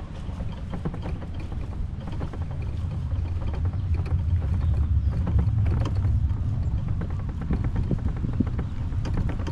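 Wind buffeting the microphone as a steady low rumble, swelling in the middle, with scattered light clicks and creaks.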